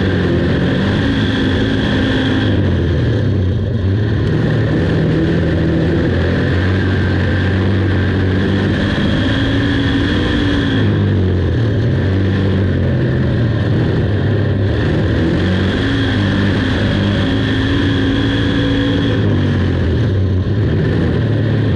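Big-block dirt modified's V8 engine at racing speed under load, its note climbing and then falling in pitch every several seconds as the car accelerates and lifts, with no break in the sound.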